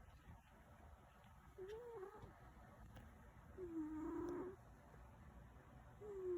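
A sleeping cat snoring: a short, pitched, squeaky snore on each breath, three in a row about two seconds apart, the middle one the longest.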